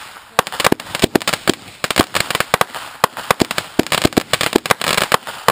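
Fireworks going off in a rapid, irregular string of sharp bangs and pops, several a second, with crackling that thickens in the second half.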